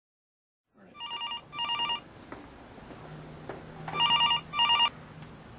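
Wall-mounted telephone with an electronic ringer, ringing twice in a double-ring pattern: two short trilling rings about a second in, a pause, then two more about four seconds in.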